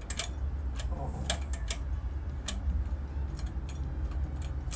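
Combination dial of a Chubb safe lock being turned by hand, giving irregular light clicks as a new combination is entered to reset it. A low steady hum runs underneath.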